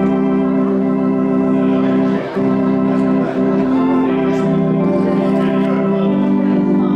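Church organ playing slow, sustained chords that change every second or so, typical of a postlude at the close of a service.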